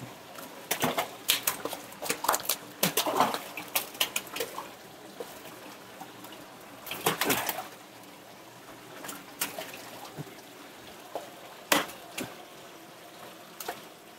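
A live carp splashing and thrashing in a wire landing net as it is lifted out of a holding tank, with wet slaps and water splashing in several irregular bursts.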